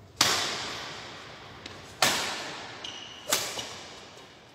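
Badminton rackets striking the shuttlecock in a rally: three sharp hits, each ringing on in a long echo from the hall.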